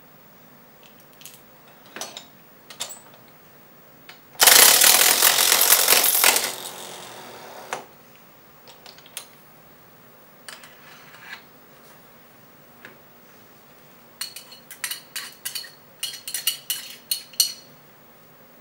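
Battery-powered cortical bone mill running for about two seconds as it mills bone, beginning about four seconds in, its noise dying away over the next second or so. Scattered sharp clicks before it, and a quick run of clicks and rattles near the end.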